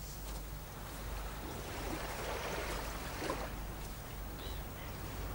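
Seaside ambience: soft waves washing in, heard as a steady hiss that swells and eases.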